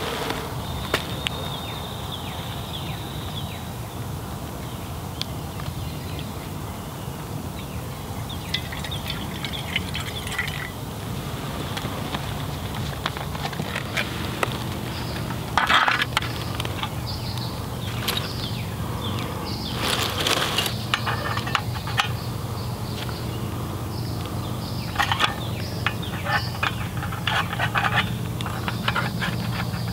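Metal camping gear being handled on a wooden board: clinks and rattles of a small alcohol stove and its cross-shaped metal pot stand being set up, in scattered clusters, over a steady low hum.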